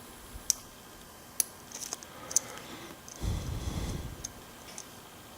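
Sharp, scattered metal clicks of a lock pick working the key pins of a ScanLock SLX-5 lock cylinder under tension, with a low rubbing of handling about three seconds in.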